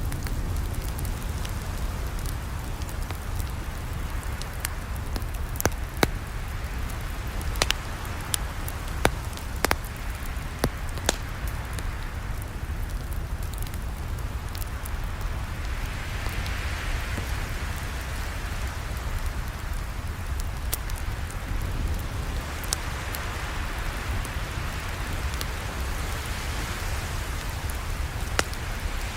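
Campfire burning with a steady low rumble and hiss, broken by sparse sharp crackles and pops from the wood; the hiss swells twice in the second half.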